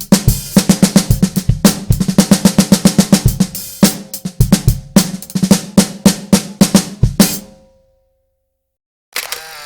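Steel-shell 6x14 snare drum played in fast strokes and rolls, with bass drum hits underneath. The playing stops about seven and a half seconds in and the drum rings out briefly. A short, quieter sound of another kind starts just before the end.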